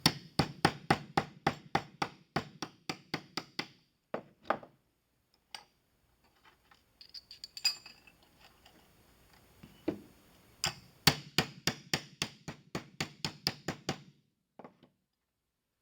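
Ball peen hammer striking folded sheet brass in quick, even taps, about four or five a second, in two runs of several seconds with light clinks in the pause between, closing a barrel hinge around brass rod.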